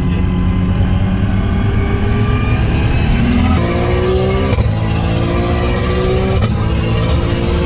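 Turbocharged car engine heard from inside the cabin under hard acceleration, its pitch climbing in stretches and dropping sharply at quick gear changes as it pulls up through the gears.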